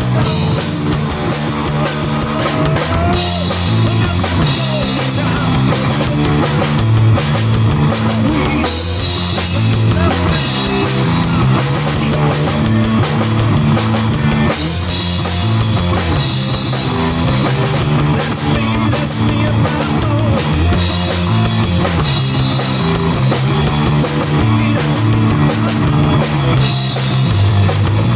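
Live rock band playing with a drum kit and guitar, a steady full mix.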